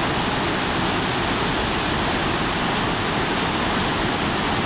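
Fast-flowing river water rushing, a steady loud wash of noise with no pitch.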